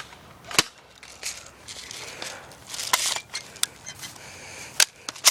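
An airsoft gun being reloaded: sharp plastic clicks and snaps at uneven gaps, about seven in five seconds, over rustling.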